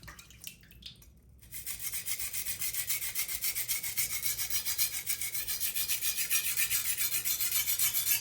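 Steel knife edge scraping over a coarse 220-grit whetstone in rapid, even back-and-forth strokes under light pressure, raising a burr. A few faint scrapes come first, then the steady stroking starts about a second and a half in.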